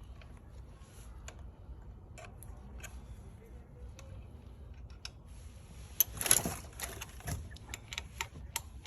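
Light clicks and taps of bike parts and a small tool being handled, with a louder clatter about six seconds in and a quick run of clicks near the end.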